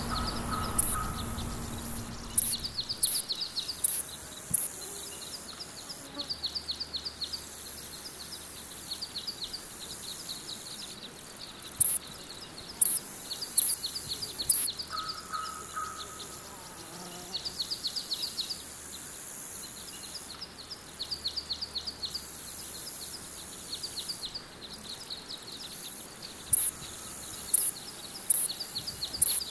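Outdoor meadow ambience: insects stridulating in short trains of rapid pulses every second or two, with sharp high chirps and occasional brief bird calls. A low rumble fades out in the first two seconds.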